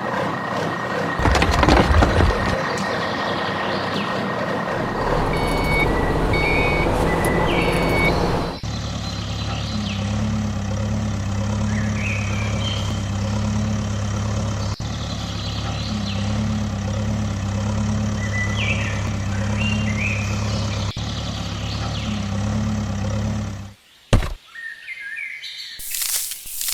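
Small motors of radio-controlled model construction vehicles running, with birds chirping and a short run of electronic beeps about six seconds in. The sound changes abruptly several times.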